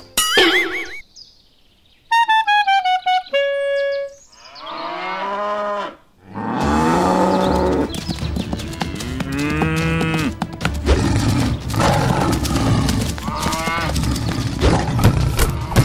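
Cows mooing, one long moo after another from about four seconds in. Before that come a few short sound-effect tones: a falling, stuttering run and a short held note.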